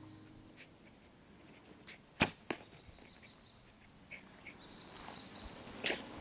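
An arrow shot from a wooden bow: a sharp snap of the string on release, then about a third of a second later the arrow's hit on the target. Another sharp knock comes near the end.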